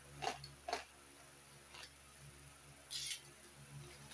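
A small parcel being handled and opened: a few light, sharp clicks and taps, then a brief crinkle of plastic wrapping about three seconds in.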